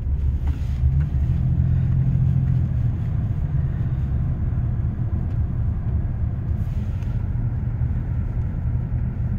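Steady low rumble of a car's engine and road noise heard from inside the cabin, a little stronger in the first couple of seconds.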